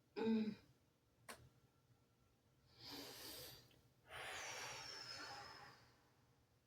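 A woman breathing deeply while stretching: a short voiced murmur at the start, a faint click, then an in-breath followed by a longer out-breath.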